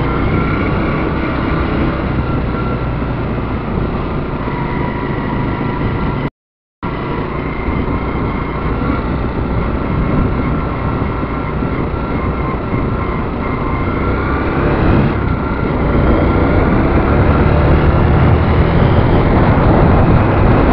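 Motorcycle being ridden on the road, engine running steadily under a dense rush of riding noise. The sound cuts out completely for about half a second some six seconds in. The engine gets louder over the last few seconds as the bike picks up.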